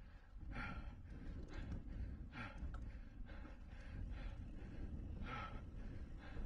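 Racing cyclist's hard, rhythmic breathing, about one loud breath a second, over a steady low rumble.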